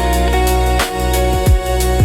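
Slow, chill electronic music with a steady beat: a deep kick drum that drops in pitch, a sharp snare-like hit, and sustained chords.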